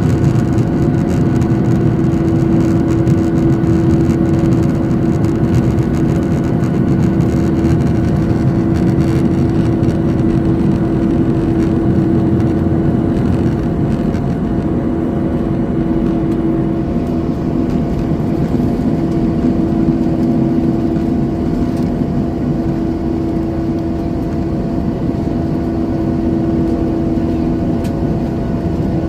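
Boeing 737-900ER's CFM56 jet engines and airflow heard from inside the passenger cabin: a steady loud drone with a constant hum-like tone in it, easing slightly in the second half.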